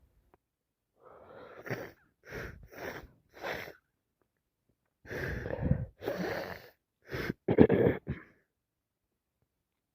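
A woman with a heavy head cold drawing several sharp, wheezy breaths as a sneeze builds, then sneezing hard near the end.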